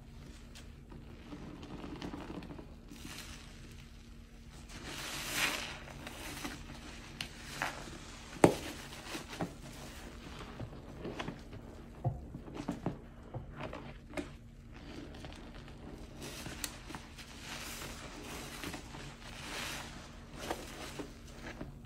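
Soapy sponges squeezed and kneaded by hand in a basin of sudsy water: irregular wet squelching, sloshing and crackling foam, with a sharp click about eight seconds in.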